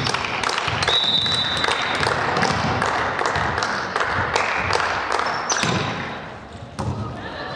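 Volleyball rally in a sports hall: the ball struck again and again, in sharp smacks and thuds that echo, over a steady din of players' and spectators' voices. There is a brief high squeak about a second in.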